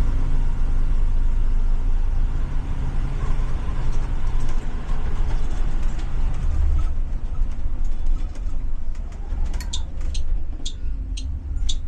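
Ford 7.3 L "Godzilla" gasoline V8 of a Blue Bird Vision school bus running with a steady low drone, heard from the driver's seat; the engine is still healthy. Near the end, a run of short, high chirps comes in over it.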